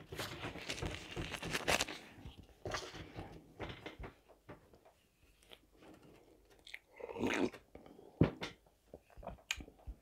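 Close-up chewing and mouth noises of a person eating chicken shawarma. A little after eight seconds a sharp clink, a glass tea mug knocking on the table.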